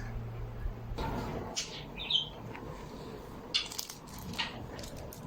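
A small bird gives a short chirp, amid scattered clicks and rustles; a low steady hum stops about a second in.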